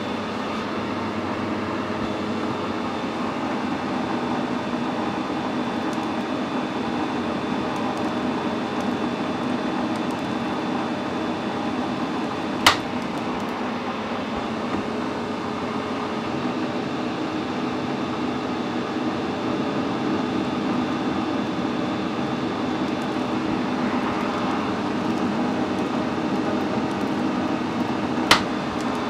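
Metal lathe running steadily while screw-cutting a 6 mm thread on a stud with a threading insert: an even machine hum with a few steady tones. Two sharp clicks, one about halfway through and one near the end.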